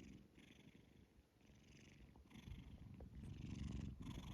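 Scottish Fold cat snoring softly in its sleep: a low rumble with a breathy hiss about once a second, louder from about halfway through.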